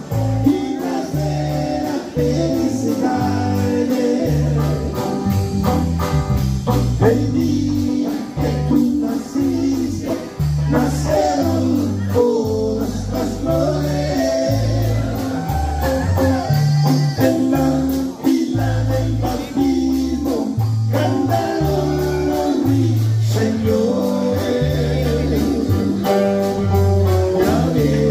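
Live dance band playing: a stepping bass line under electric guitar and drum kit.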